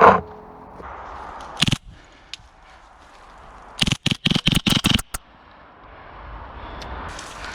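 Airsoft gunfire: a loud sharp crack at the start, a single crack under two seconds in, then a quick string of about eight cracks around four to five seconds in.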